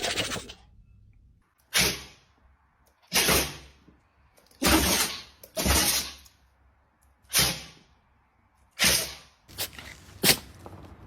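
Dogs sneezing: about eight short, sharp sneezes, roughly one every second and a half.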